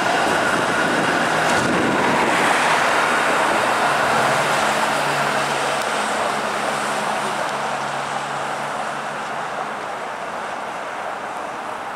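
Bombardier Flexity Outlook low-floor streetcar rolling past on its rails and away down the street, with road traffic going by. The sound slowly fades over the last few seconds.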